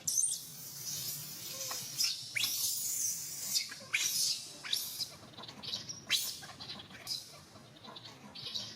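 Baby monkey giving a run of short, high-pitched squeals that fall in pitch, the distress cries of an infant resisting its mother.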